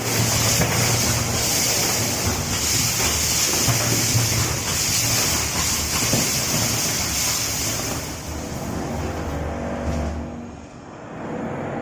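A machine running loudly and steadily, a strong hiss over a low hum; it drops away about ten seconds in.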